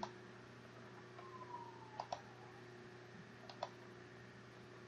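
Three computer mouse clicks, each a quick press-and-release pair: one at the start, one about two seconds in, one about three and a half seconds in, over a faint steady hum.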